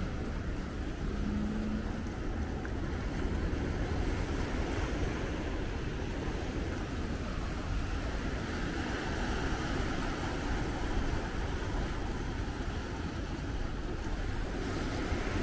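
Ocean surf washing steadily over a rock shelf, with wind rumbling on the microphone.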